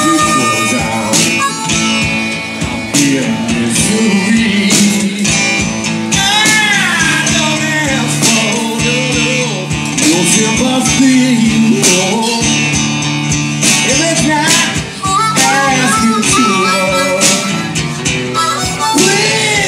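Live blues duo: a harmonica, played cupped to a microphone, takes an instrumental solo with bent notes over strummed acoustic guitar.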